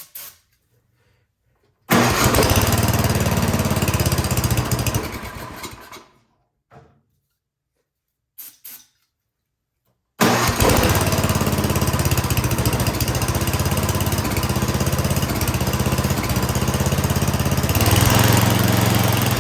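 MTD Yard Machines snowblower engine firing on starting fluid: it catches about two seconds in, runs for a few seconds and dies away. After a couple of knocks it starts again about ten seconds in and keeps running, growing a little louder near the end. The high-speed mixture screw on its carburetor is turned all the way in, which the mechanic says needs to come out to let gas flow.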